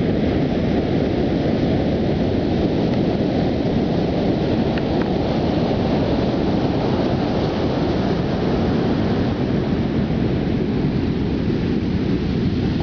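Ocean surf washing up the beach under a steady low rumble of wind buffeting the microphone.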